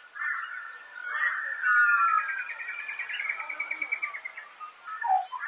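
Birds calling in a series of short calls, with a rapid run of evenly repeated notes through the middle.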